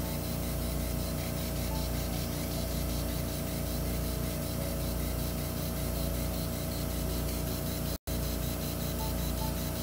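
Microdebrider blade running while it shaves down the inferior turbinate: a steady motor whir and hiss with a fast, even flutter. The sound cuts out for an instant about eight seconds in.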